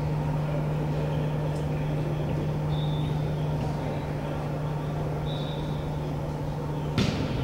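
Steady low hum of gym background noise, with two faint short high squeaks, then a single sharp smack near the end: a volleyball being struck, most likely a serve.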